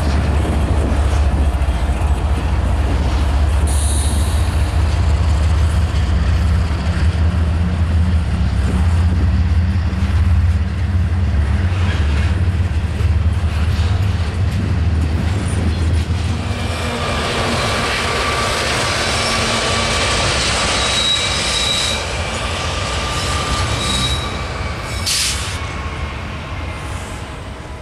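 Double-stack intermodal freight train's well cars rolling past with a steady low rumble; a bit over halfway through the rumble drops away and the wheels squeal on the rail in thin, high-pitched tones, fading toward the end.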